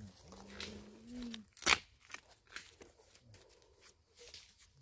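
Dry bamboo leaves and sticks crunching and crackling, with one loud sharp snap a little under two seconds in.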